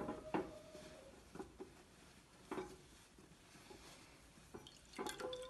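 Elderflower squash being strained by hand through a wet tea towel into a glass jug in a sink: a few faint knocks and squelches of the cloth being handled, then liquid dripping and trickling into the jug near the end.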